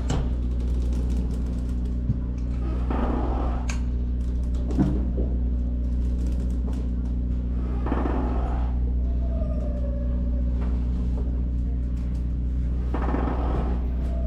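A steady, low engine hum, with a short swishing noise about every five seconds.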